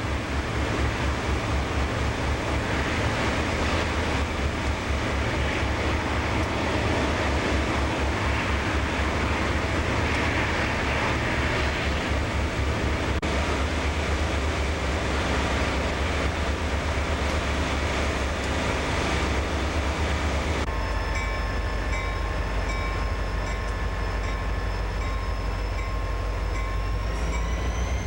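Diesel freight locomotives running, a low throbbing engine rumble. About two thirds of the way through it cuts to locomotives running close by, with steady whines over the rumble that rise in pitch near the end.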